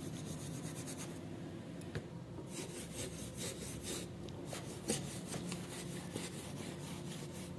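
Quick back-and-forth strokes of an abrasive scrubbing rust off the steel of a pair of garden shears, several strokes a second, in runs broken by short pauses. A steady low hum sits underneath.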